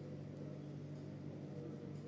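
A steady low hum with a few constant tones.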